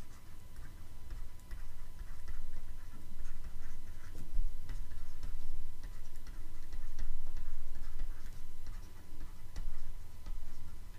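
Stylus tapping and scratching on a drawing tablet during handwriting: a scatter of small, irregular ticks over a low rumble.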